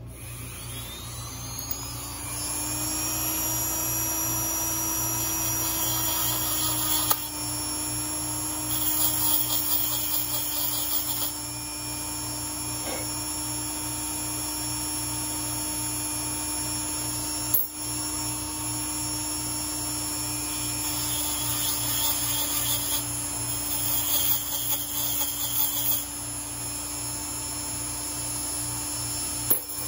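Small electric power tool spinning a chamfering and deburring cutter for .223 brass cases. It winds up to speed at the start and then runs with a steady whine. Twice, louder scraping joins in as the cutter works a case mouth, and there are a couple of short clicks.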